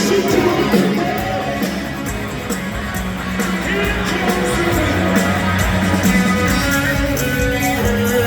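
Live rock band playing, heard from the audience: electric guitars over drums and cymbals, with a voice singing now and then.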